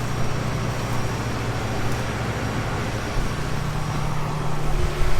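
Combine harvester running steadily while harvesting corn: an even engine and threshing hum with a low drone underneath.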